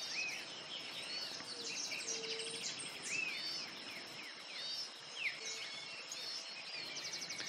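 Quiet bird chorus: many short arched chirps and calls over a steady, high-pitched insect trill.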